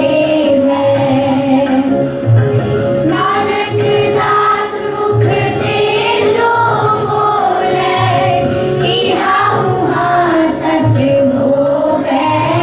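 A group of children singing a Sikh shabad (devotional hymn) together, with a regular drum beat underneath.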